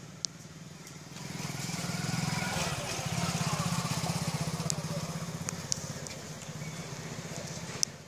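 A small engine running with a pulsing note, growing louder from about a second in and easing off near the end. A few short sharp clicks sound over it.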